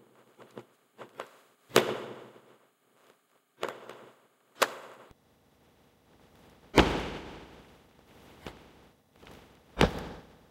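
Military drill steps on a stone floor: about five sharp foot stamps and heavier footfalls, spaced unevenly, each ringing out in a reverberant church, with a few lighter steps between them.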